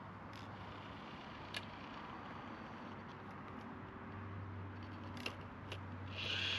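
Small WPL C64-1 RC truck on the trail: a faint steady low hum with a few scattered sharp clicks, and a short rasping burst starting near the end.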